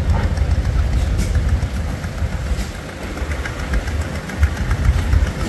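An engine running with a low, pulsing rumble.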